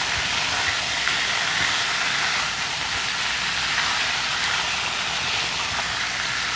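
Mutton liver pieces sizzling steadily in hot oil in a pan over high heat.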